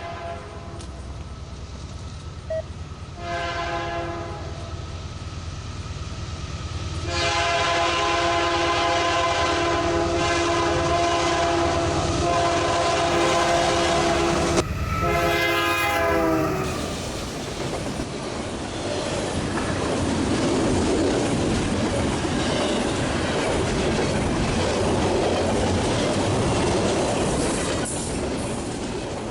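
Freight locomotive air horn sounding a chord in three blasts, a short one, a long one, then one that falls in pitch. Then the steady rumble and clatter of the train's cars rolling past.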